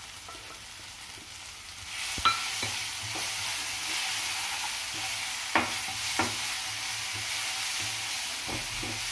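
Onion, tomato and capsicum masala sizzling in oil in a nonstick frying pan while a spatula stirs and scrapes it, cooking it down to a thick paste. The sizzle gets louder about two seconds in, with a few sharp scrapes of the spatula against the pan.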